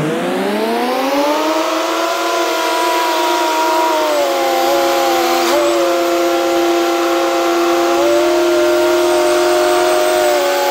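A semi-truck's diesel engine revs up over the first couple of seconds, then holds a steady, whining pitch as the tractor-trailer reverses.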